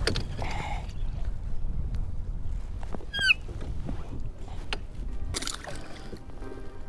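Wind and water lapping around a kayak hull, with a few small knocks as the catch is handled. There is a short, high chirping call about three seconds in and a brief hiss about five seconds in.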